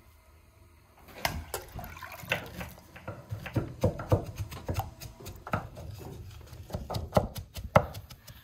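Liquid, oil among it, poured and dripping into a steel mixing bowl, with a quick run of sharp clicks, knocks and plops from a wooden spoon and glass jug as dough is mixed. It starts about a second in.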